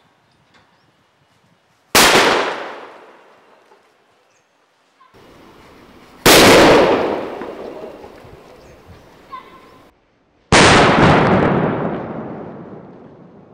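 Rassi bomb (rope-bomb firecracker) exploding inside a cabbage: three loud bangs about four seconds apart, each dying away over a second or two.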